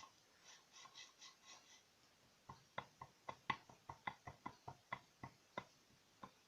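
A series of about fifteen sharp, irregularly spaced light clicks, starting about two and a half seconds in and lasting to near the end, with no running engine under them.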